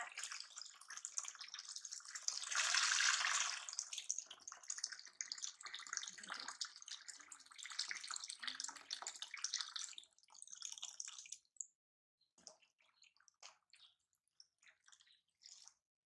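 Water from a tap running into a plastic basin and splashing, louder for about a second around three seconds in. The flow stops about eleven seconds in, leaving only scattered small drips and splashes.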